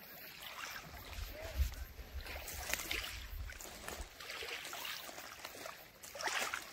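Small waves lapping gently at a shell-and-gravel beach, with wind rumbling on the microphone for a couple of seconds about a second in.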